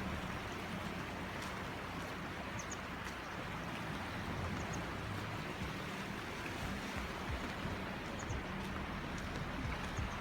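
Steady rush of a fast-flowing mountain river, with a few faint high chirps.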